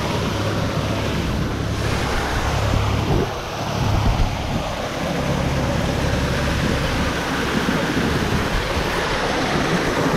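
Steady rush and splash of an artificial rock waterfall pouring into a lazy river pool, with water lapping close by, dipping briefly about three seconds in.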